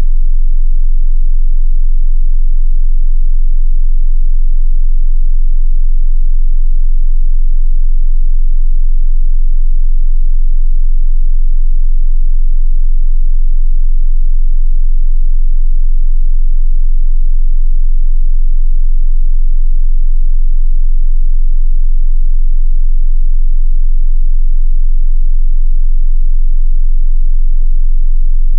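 A continuous 22 Hz sine test tone, a very deep, steady bass hum played at high level for testing subwoofers.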